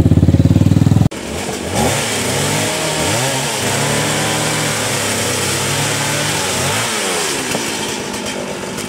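An engine running with a fast, even throb stops abruptly about a second in. After that a small petrol engine, likely a chainsaw, revs up and down repeatedly over a steady hiss, easing off near the end.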